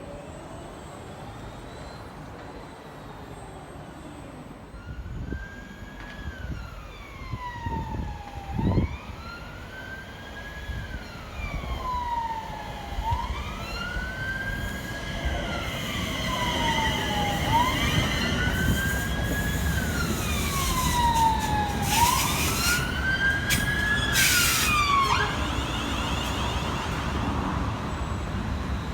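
Emergency vehicle siren on a slow wail, its pitch rising and falling about every four seconds over background traffic rumble. It grows louder as it approaches and cuts off about 25 seconds in, with a single thump at about 9 seconds.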